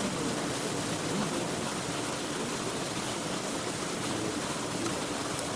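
Steady rushing, hiss-like outdoor noise with faint voices under it.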